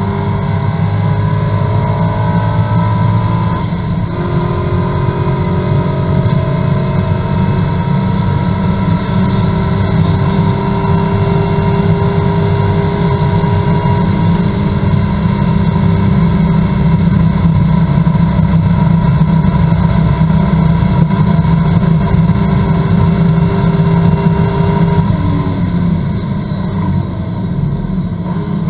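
Corvette GT2 race car's V8 engine at full throttle, heard from inside the cockpit. The pitch jumps with an upshift about four seconds in, then the engine note climbs slowly as speed builds flat out, and falls away near the end as the driver lifts and brakes.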